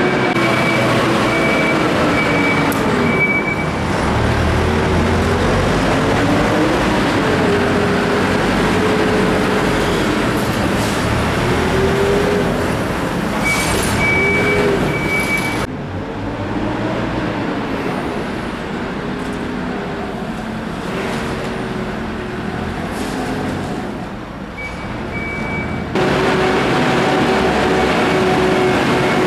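Heavy diesel engines of mine loaders and a lorry running and revving, their pitch rising and falling, echoing in a rock tunnel. A repeated high beep sounds near the start and again about halfway through.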